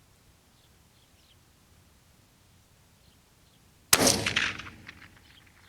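A single shot from a Marlin .22 Winchester Magnum Rimfire rifle about four seconds in: one sharp crack with a short ringing tail, followed by a few faint clicks.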